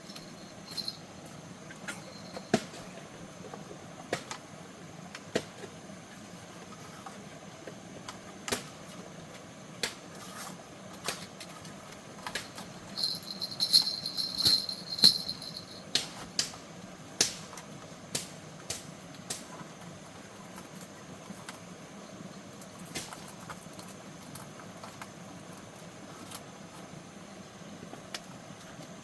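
Sharp knocks and taps at irregular intervals, one every second or two, with a quicker run of them and a brief high ringing sound in the middle.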